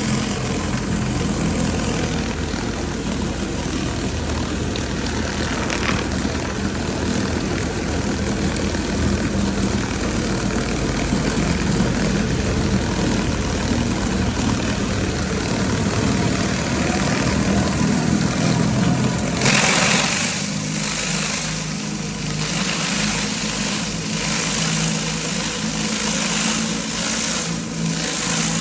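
Pressure washer's engine running steadily while its water jet hisses against concrete. About two-thirds of the way through, the spray's hiss gets louder and brighter and the engine's low hum drops back.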